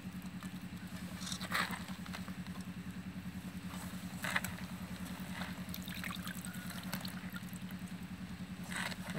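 An engine running steadily, a low hum with a quick even pulse, under a few brief drips and rustles as wet strips of banana flower are lifted from water and pressed by hand into gram flour in a steel pot.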